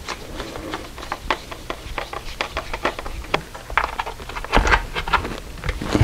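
Irregular light clicks and rattles of a handheld multimeter's plastic case and its test leads being handled, with a dull thump about four and a half seconds in.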